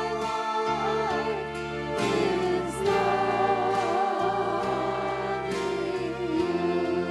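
A hymn sung with instrumental accompaniment: held chords that change every second or two under wavering sung melody lines.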